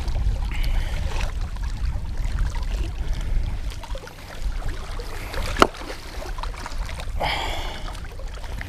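Wind rumbling on the microphone over water sloshing at a rocky shore, with a single sharp click about five and a half seconds in.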